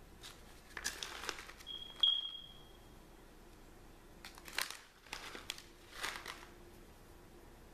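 Plastic pouch of bacon bits crinkling in several short bursts as the bits are shaken out by hand. About two seconds in, the loudest moment: a sharp click with a brief high-pitched chirp that fades away.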